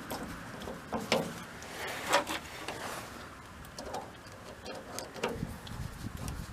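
Scattered light clicks and taps of hand tools and door-handle parts being handled while the handle is fitted to the cargo door, with a low rubbing sound starting near the end.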